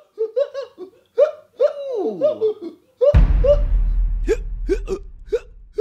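A string of short, high hiccups, with one longer call that slides down in pitch about two seconds in. About three seconds in, a sudden deep boom, the loudest sound here, cuts in and dies away over the next two seconds while the hiccups go on.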